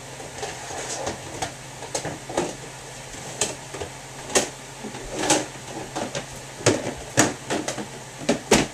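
Irregular clicks, knocks and rustles of plastic console parts and cables being handled, the louder knocks coming near the end, over a steady low hum.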